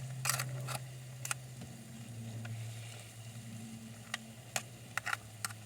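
Steady low electrical hum from a clip-on lapel microphone, interference she suspects comes from the van's metal body or her cochlear implant, with a few sharp clicks scattered through it.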